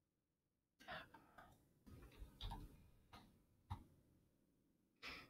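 Faint, irregular clicks and taps of a computer mouse and keyboard, a handful spread over a few seconds after a short silence.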